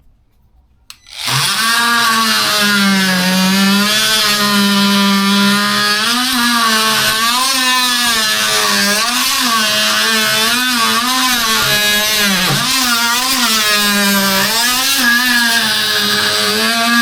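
Ryobi 18 V oscillating multi-tool starting about a second in and cutting into pine with its blade. Its steady buzz dips in pitch again and again as the blade is pushed into the wood and slows under the load.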